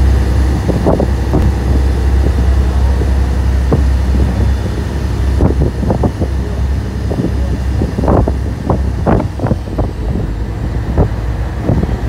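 Steady low rumble of a boat's engine heard from on board while under way, with wind on the microphone.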